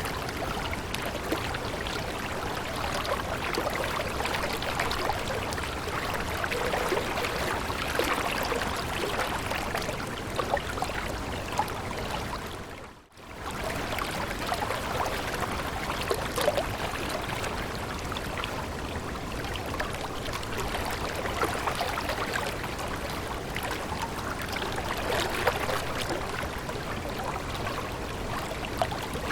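Water running in a stream, a steady babble with many small splashes. About halfway through it fades out for a moment and comes back.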